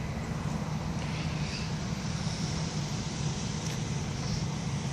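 Steady outdoor background rumble, like distant traffic, with a faint high hiss over it.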